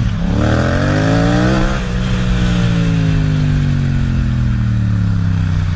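Motorcycle engine accelerating hard, its pitch climbing steadily, then dropping sharply at an upshift about two seconds in, after which it holds and slowly falls as the throttle eases, with wind rushing over the helmet-camera microphone.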